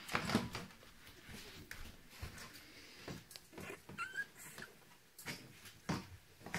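Two-week-old puppies giving faint small whimpers and squeaks, with a short rising squeak about four seconds in. Soft rustling and handling noises from a hand stroking them on a towel.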